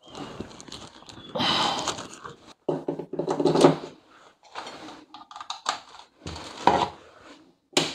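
Handling sounds of a cordless tool battery and its plug-in charger: knocks, scrapes and clatter of plastic on a hard worktop as the charger plug goes into a wall socket. They come in several short, separate bursts, the loudest about halfway through.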